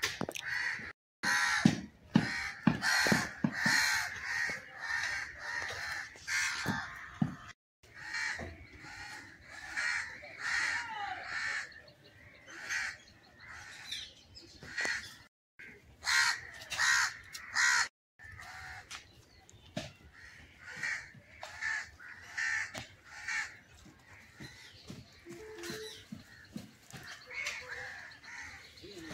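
Crows cawing over and over, call after call with short pauses between them; the sound cuts out abruptly a few times.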